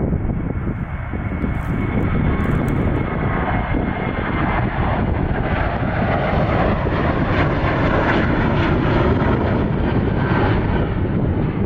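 Twin CFM56 turbofans of a Boeing 737 at takeoff thrust: a continuous jet rumble and roar as the airliner lifts off and climbs out. It grows louder and brighter, at its loudest a little past halfway, then eases slightly.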